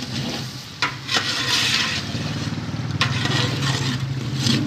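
Chicken, tomatoes and masala frying in oil in a large aluminium pot, sizzling as a steel ladle stirs them. The ladle knocks against the pot a few times, over a steady low hum.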